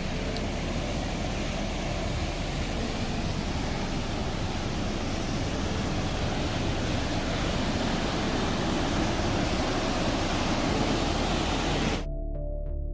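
Steady rush of a hill stream, an even, rough hiss with no pauses. It cuts off suddenly near the end and soft background music with plucked notes starts.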